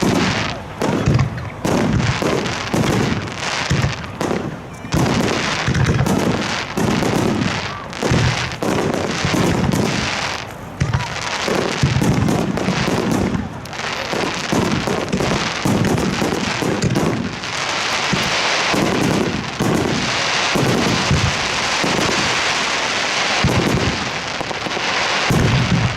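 Fireworks display: shells bursting one after another in a rapid barrage, each with a deep boom. About two-thirds of the way through there is a longer spell of dense crackling.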